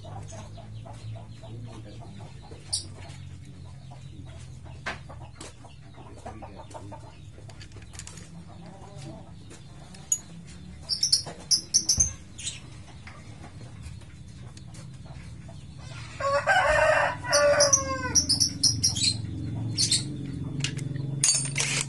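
A rooster crowing once, about three-quarters of the way through, the loudest sound, with a few short high chirps a few seconds before it. Underneath, light metallic clicks and taps as clutch plates and springs are fitted into a motorcycle clutch basket, over a low steady hum.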